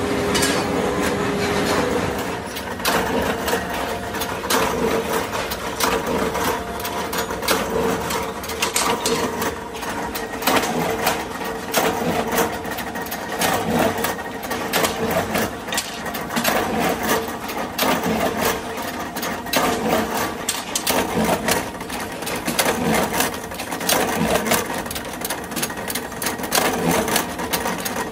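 Forging machinery working hot steel for truck wheel nuts: a steady machine hum, joined about two seconds in by rapid, uneven clattering knocks of a power press and metal on metal.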